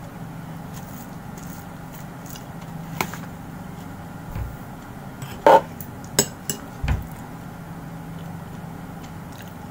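A few short clinks and knocks of dishes and cutlery as food is handled at a table, the loudest about five and a half seconds in, over a steady low hum.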